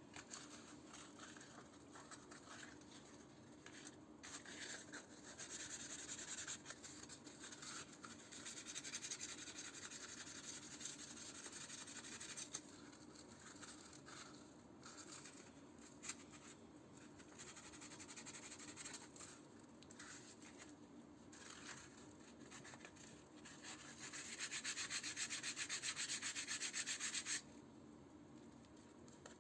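Sandpaper rubbed by hand over wood in runs of scratchy strokes, with short pauses between them. The strongest run comes near the end and stops abruptly.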